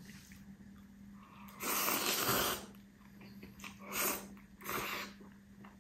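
Slurping sauce-coated noodles from chopsticks: one long, loud slurp about one and a half seconds in, then two shorter slurps near the end.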